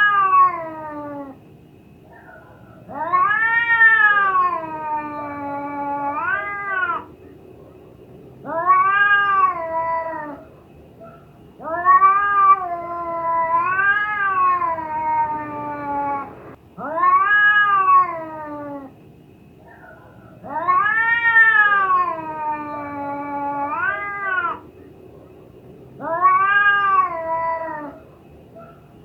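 A cat in heat yowling: a series of long, drawn-out calls that rise and fall in pitch, each a couple of seconds long with short pauses between, several ending in a quick upward swoop.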